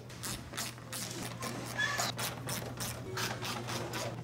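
Hand tool clicking in quick, irregular strokes as the belly pan's fasteners are undone, with short rattles from the pan. A steady low hum runs underneath.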